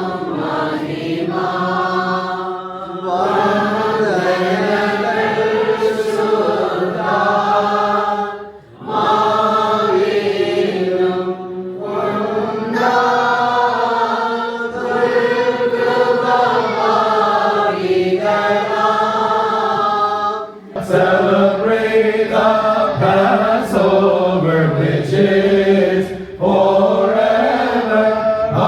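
Several voices chanting a Malankara Orthodox liturgical hymn together in long, drawn-out sung phrases, with brief breaths between phrases about 9 and 21 seconds in.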